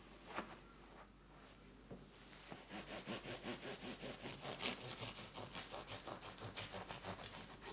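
Bread knife sawing back and forth through the crust of a freshly baked white loaf, a crisp rasping at about four strokes a second that starts a couple of seconds in and keeps going. Before it, a single light knock about half a second in.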